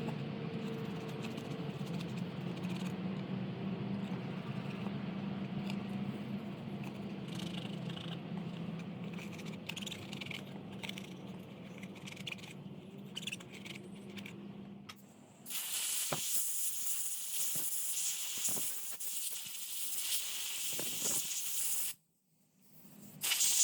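Workshop sounds: a steady low hum with small light rattles, then a loud, even hiss that starts about two-thirds of the way in and cuts off abruptly, followed by one short burst of hiss near the end.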